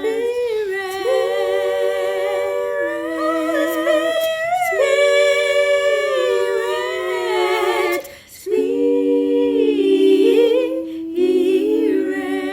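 A single voice singing unaccompanied, with no words caught: a slow melody of long held notes with vibrato, and a short break for breath about eight seconds in.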